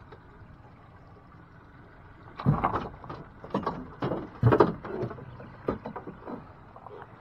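A run of knocks and clattering thumps on a small fishing boat, beginning about two and a half seconds in and fading out over about four seconds, over a faint steady background.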